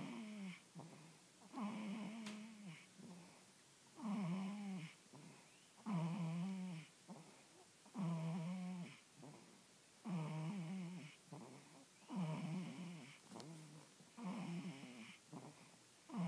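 Newborn baby snoring in her sleep: a short pitched snore on each breath, about one every two seconds.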